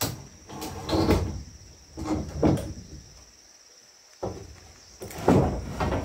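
Irregular knocks and scrapes of objects being handled and set down, five in all, with a pause between the fourth and fifth. A steady high insect trill runs underneath.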